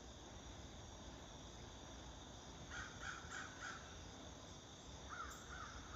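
Crows cawing: a run of about four short, harsh caws about three seconds in and another run near the end. Faint, steady chirring of crickets runs underneath.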